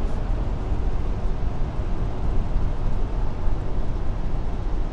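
Steady road and engine noise heard inside the cabin of a van driving along a road, low and even throughout.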